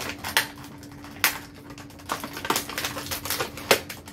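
Plastic and cardboard action-figure packaging being handled and taken apart: irregular clicks, rustles and a few sharper clacks of the plastic tray.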